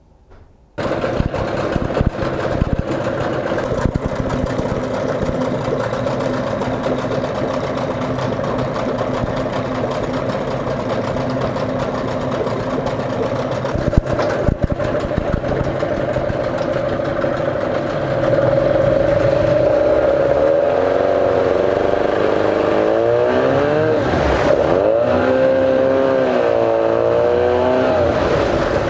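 Hangkai 9.8 two-stroke outboard motor running with its cowling off, coming in abruptly about a second in and running steadily. About two-thirds of the way through it gets louder and is revved up and down several times, with the propeller churning the water of a test tank.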